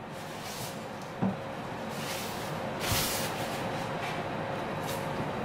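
Steady hiss of a gas stove burner heating oil in a stainless wok, with a faint steady hum. A light knock comes about a second in, and a short swell of hiss a little before the middle.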